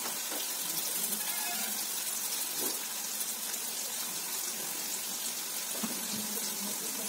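Food sizzling in an oiled frying pan on a gas burner: a steady hiss with faint scattered crackles.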